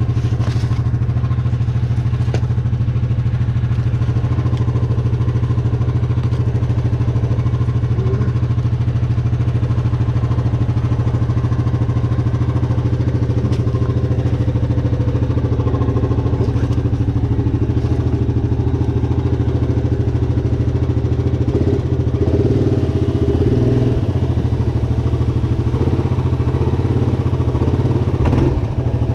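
Four-wheeler (ATV) engine running steadily at low speed, with a few clicks and clatter. It picks up a little twice in the last third.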